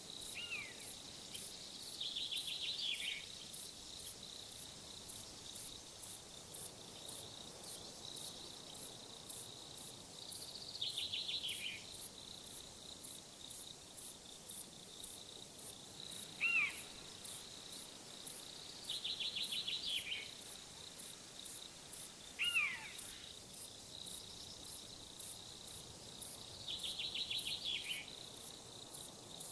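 Crickets chirping in an even, high-pitched pulse, about two chirps a second, with a steady high singing behind them. Short falling trills and whistles come in every few seconds.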